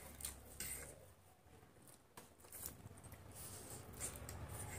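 Faint eating sounds from two people eating noodles with forks: soft slurps and mouth smacks with scattered sharp clicks, a few to the second.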